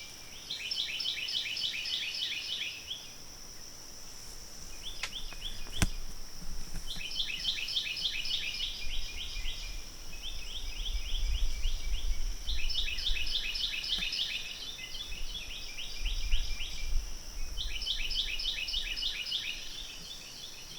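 A songbird singing repeated phrases of rapid chirps, each phrase about two seconds long, with short pauses between them. Under the song there is a steady high-pitched tone, and a low rumble in the second half.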